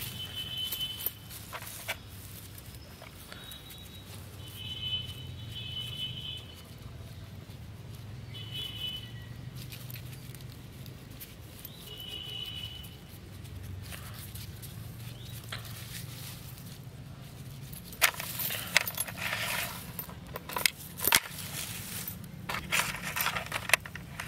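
Steel chain clinking and scraping against a metal plate as it is handled, in dense bursts of sharp rattles over the last six seconds. Earlier, a few short high chirps sound over a steady low hum.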